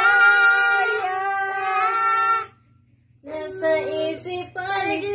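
A small child singing, holding one long high note for about two and a half seconds, then a short pause before singing again.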